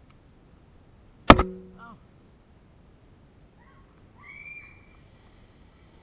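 A firework going off: one sharp bang with a short ringing tail.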